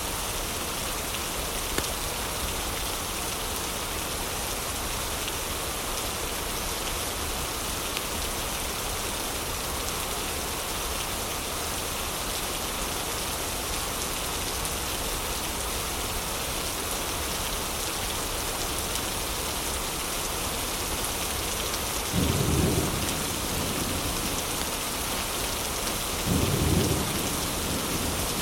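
Heavy rain falling steadily. Near the end come two short, low rumbles of thunder a few seconds apart.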